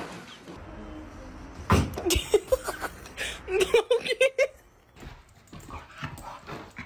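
A dog's head thumping down onto wooden deck boards: one loud thump about two seconds in, followed by a few lighter knocks. Then a short string of high-pitched vocal sounds.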